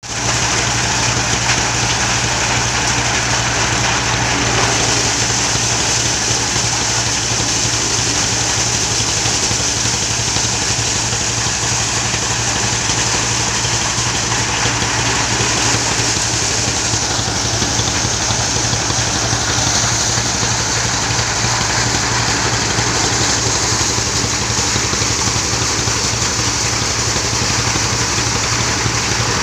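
Motorized corn sheller running steadily under its small diesel engine: the steady engine drone with a dense rattling rush of corn going through the threshing drum and stripped cobs spilling out.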